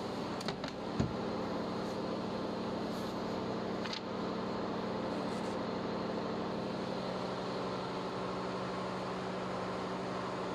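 Ship's engine-room machinery running, a steady drone with a constant low hum. A short knock sounds about a second in.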